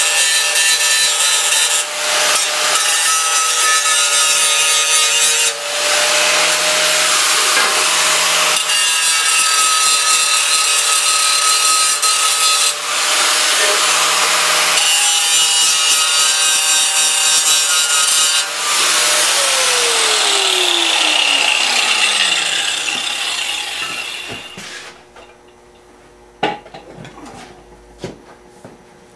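Electric grinder spinning up and grinding metal clean for welding, with a harsh grinding noise over the motor's steady whine, broken by a few short lifts; about 19 seconds in the motor is switched off and its pitch falls as it spins down, followed by a few light clicks.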